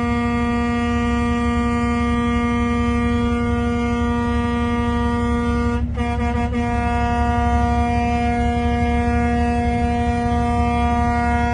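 Truck air horn held in one long, steady blast on a single pitch, over a low rumble, with a brief hiccup about six seconds in.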